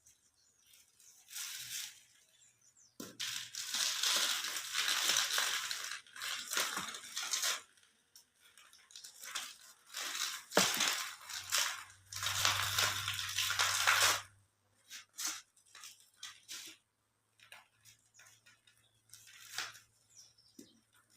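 Soft cement cubes being crushed and crumbled: gritty crunching in irregular bursts with short pauses between them.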